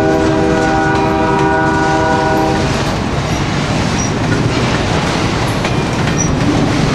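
A locomotive horn sounds a chord of several steady notes and cuts off about two and a half seconds in, over the continuous rumble and clickety-clack of pipe-loaded flatcars rolling past on the rails.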